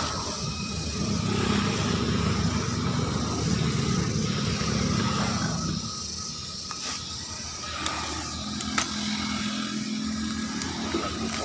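A motor vehicle engine passing at close range, a low drone that is loudest from about one to six seconds in and comes back near the end. Underneath is a faint steady high hiss, and two short sharp clicks fall in between.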